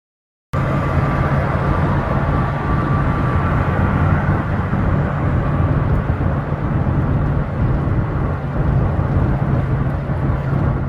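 A loud, steady mechanical drone with a low hum, starting abruptly about half a second in and cutting off abruptly at the end.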